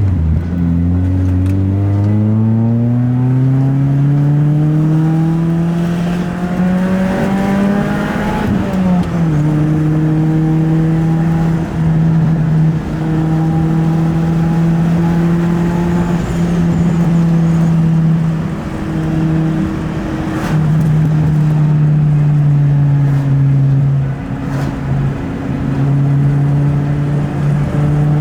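Honda Accord wagon's swapped-in H22 inline-four accelerating, its note rising steadily for about eight seconds, then dropping sharply at an upshift about nine seconds in and settling to a steady cruise.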